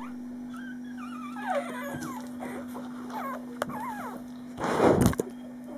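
A five-day-old German shorthaired pointer puppy whimpering and squeaking in a string of high, wavering cries, then a loud rustling thump about five seconds in.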